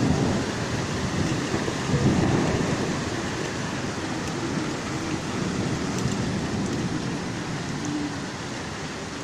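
Heavy rainstorm with strong wind: a steady dense rush of rain and wind, with low rumbling surges at the start and again about two seconds in.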